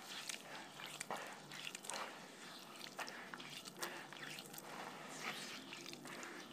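Hands squeezing and kneading a wet grey paste in a plastic tub of shallow water: wet squelching of the mud with irregular small smacks and splashes.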